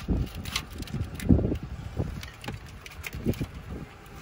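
Wind buffeting the microphone in irregular low gusts, with a few light clicks and rustles from the engine-bay wiring harness being handled.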